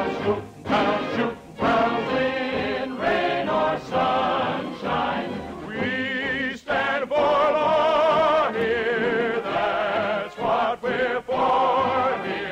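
Choir singing a marching show tune, with long held notes that waver with a wide vibrato.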